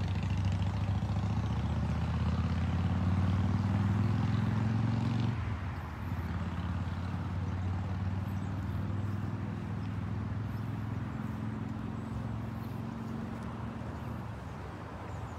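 A motor vehicle's engine running close by, a steady low hum that drops off sharply about five seconds in and then fades slowly.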